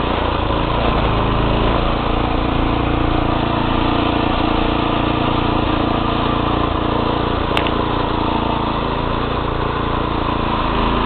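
Single-axle two-wheel tractor's engine running steadily while driving along. A short sharp click comes about seven and a half seconds in.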